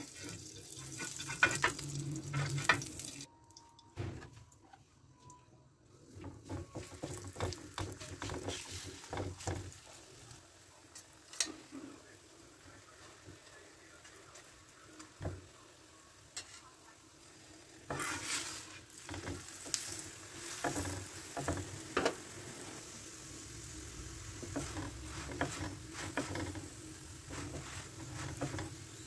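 Layered paratha frying on a hot iron tawa: oil and ghee sizzling while a metal spoon and flat spatula scrape and tap across the griddle. The scraping comes in bursts, busiest at the start and again over the last third.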